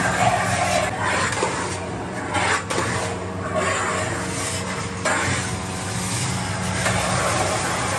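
A large batch of noodle-and-vegetable samosa filling being stirred, with a metal spatula scraping and rubbing in irregular strokes against a big pan, over a steady low hum.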